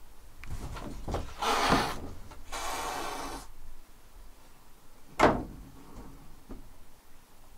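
Sliding paper door (fusuma) scraping and rattling in its track in two stretches, each about a second long, as a cat pushes through the narrow gap. One sharp knock of the door comes about five seconds in.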